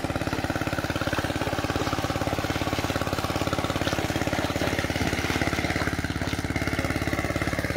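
A small engine running steadily with an even, unchanging pulse.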